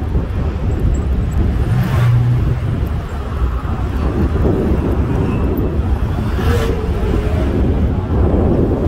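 Loud, steady outdoor rumble of road traffic mixed with wind buffeting the phone's microphone.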